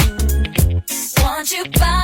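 R&B song with a funky beat and deep bass, between sung lines; the beat drops out briefly near the middle.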